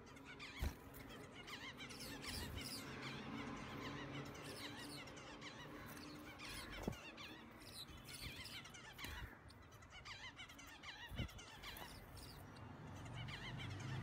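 Many small cage finches chirping and twittering at once: a busy mix of short, quick high calls, with a few sharp clicks scattered through it.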